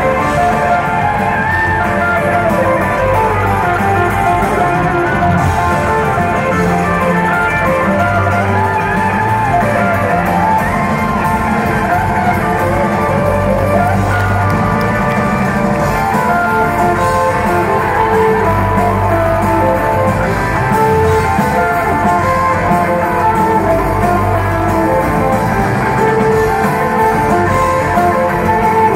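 A live rock band playing, with electric guitars to the fore over keyboards and drums, heard from the audience in a large hall. The sound is steady and loud, with little treble.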